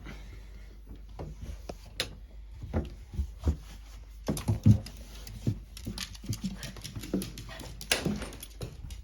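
A pet dog moving about close by: irregular soft taps and knocks, with a louder thump a little past the middle.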